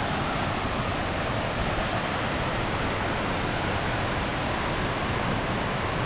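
A waterfall's falling water, heard as a steady, even rush of noise.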